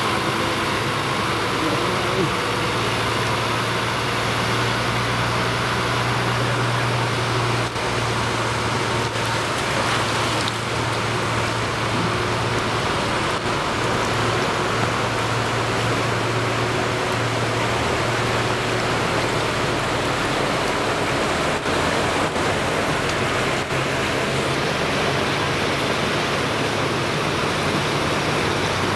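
Truck engines running in floodwater: a steady low engine hum under a constant rushing, water-like noise.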